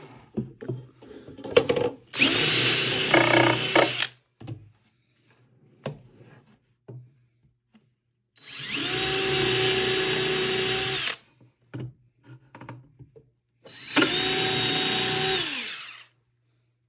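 Power drill running in three bursts of about two to three seconds each, its whine rising as the motor spins up and falling as it stops, while it pre-drills pilot holes into a wooden drawer front. Small knocks and handling clicks come between the bursts.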